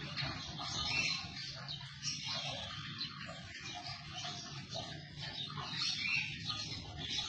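Lovebird chicks giving continuous raspy begging calls as they are hand-fed, over a low hum.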